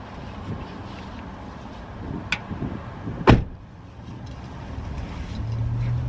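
A car door shuts with a loud thump about three seconds in, a second after a lighter click, and the background noise drops once it closes.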